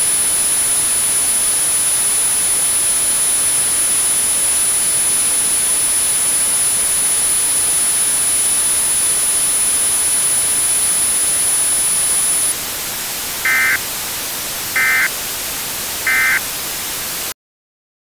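Steady hiss of TV-style static with a thin high whine, which stops about twelve seconds in. Three short, evenly spaced data chirps follow: the end-of-message burst of an Emergency Alert System broadcast, sent three times. Then the sound cuts off.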